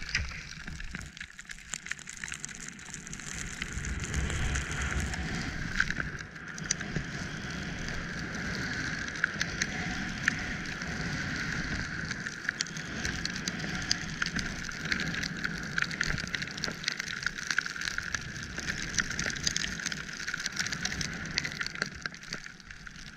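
Skis running through deep powder snow: a steady rushing hiss full of small crackles, louder from about four seconds in.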